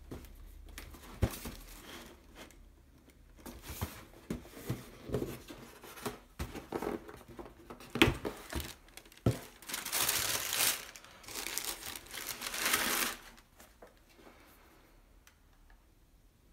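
Cardboard shoebox handled and opened by hand on a wooden table, with a few sharp knocks and taps, then tissue paper crinkling and rustling loudly for about three seconds before quieter handling near the end.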